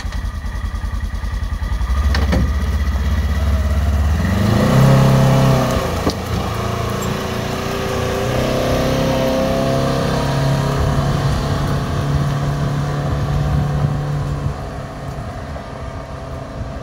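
Polaris Ranger XP 1000 side-by-side's twin-cylinder engine idling, then revving up about two seconds in as it pulls away towing a 1,400-pound military trailer. It settles into a steady running note and fades near the end as the vehicle drives off.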